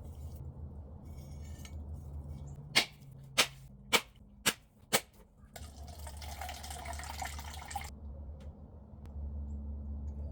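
Coconut being husked: five sharp blows on the coconut about half a second apart, then about two seconds of rough tearing and scraping as the fibrous husk is worked loose.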